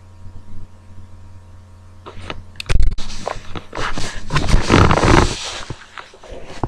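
A faint low hum, then about three seconds of loud rustling, knocking and rumbling handling noise on the microphone as the camera is picked up and carried.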